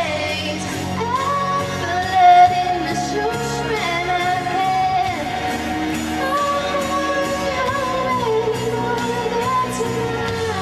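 A woman singing a slow pop ballad over instrumental accompaniment, holding long notes that glide between pitches.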